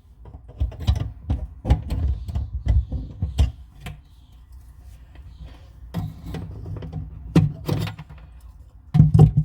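Irregular clicks, knocks and light rattles of metal faucet parts and hand tools being worked while screwing on a bathroom faucet's fittings from under the sink, with a louder knock near the end.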